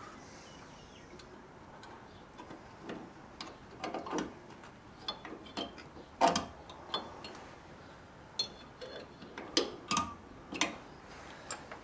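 Irregular metallic clicks and clinks of pliers and rear drum brake hardware being handled as the parking brake cable is hooked back onto the brake shoe lever.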